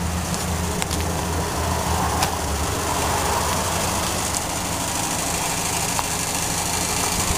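A 2000 Dodge Ram 2500's V8 idling steadily.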